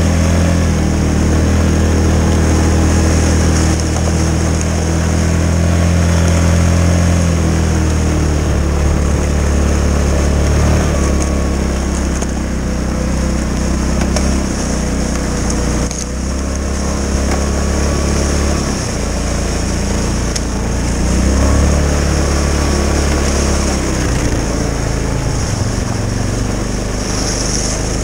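Yamaha Kodiak 450 ATV's single-cylinder four-stroke engine running steadily under way through snow. Its pitch falls and rises a few times as the throttle changes, with a brief dip in loudness about halfway through.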